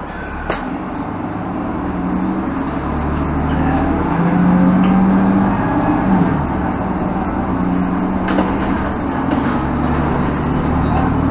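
A 2017 Nova Bus LFS diesel bus driving, heard from inside the cabin: a steady diesel engine drone with road noise. It grows louder over the first four seconds or so as the bus gathers speed, then holds.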